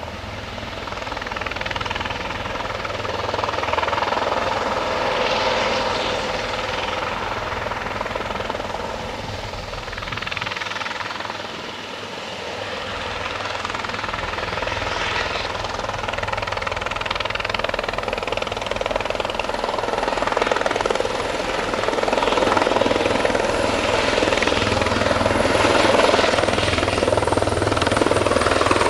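Eurocopter EC130B4 helicopter hovering and flying off: steady turbine whine with rotor and Fenestron ducted tail-rotor noise. It swells and fades, dips a little about twelve seconds in, and is loudest near the end as the helicopter comes close.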